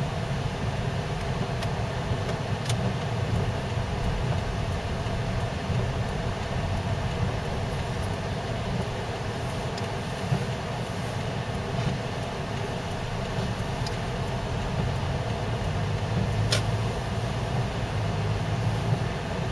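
Steady low rumble of a car's engine and tyres heard from inside the cabin while driving on snow-covered streets, with a couple of brief faint clicks.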